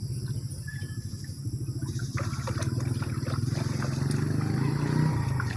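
A small engine running steadily with a low, fast, even pulse; faint clicks and rustling join it from about two seconds in.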